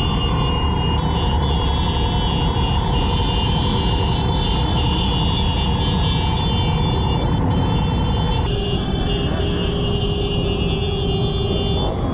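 Many motorcycle engines running together in a large slow-moving procession, a steady dense drone with no single engine standing out.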